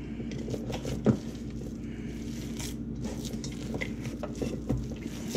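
Hands kneading and squishing raw ground beef mixed with oatmeal and egg in an enamelware bowl: soft, irregular wet squelches and scrapes, with one sharper click about a second in.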